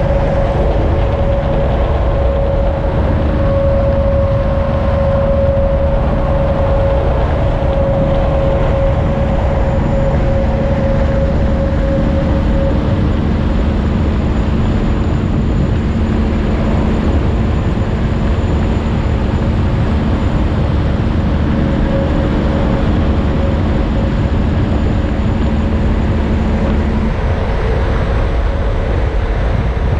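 Steady vehicle road noise at a constant cruising speed: a low rumble with a steady hum from the tyres and engine.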